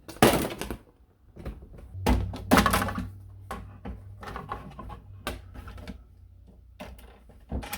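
Irregular knocks and thuds, as of something being handled or bumped. Louder ones come right at the start and twice around two to two-and-a-half seconds in, with a low steady hum from about two seconds in.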